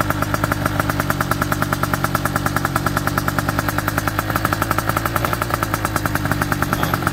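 Gilera Runner 180 scooter's two-stroke engine idling through a DDL expansion-chamber tuning exhaust, with an even, rapid pulsing exhaust note. It is the engine's first run on the new pipe, fed by a 34 mm carburettor.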